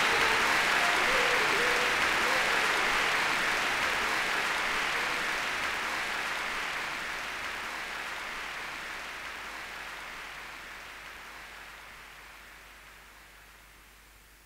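Audience applauding after a live band performance, with a few faint shouts in the first couple of seconds. The applause fades steadily to near silence by the end.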